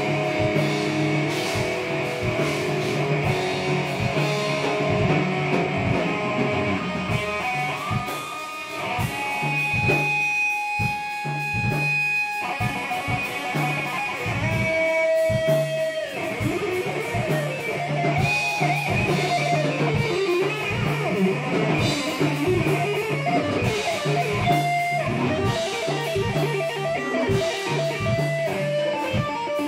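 Rock band jam: electric guitar over bass and drum kit. The drums and bass drop back for a few seconds in the middle, leaving sustained guitar notes, then the full band comes back in.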